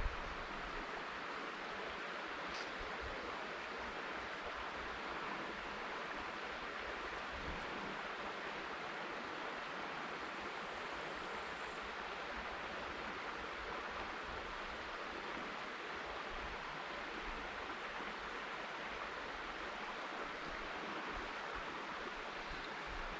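River water flowing over stones, a steady rushing noise.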